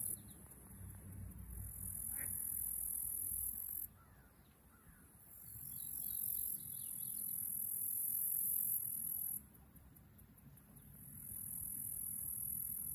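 Insects trilling from the waterside vegetation in three high-pitched bouts of a few seconds each; each bout swells up and then cuts off sharply. A few faint bird chirps come between them.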